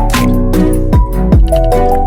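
Background music: an electronic track with deep bass drum hits that drop in pitch, sustained synth notes and crisp high percussion.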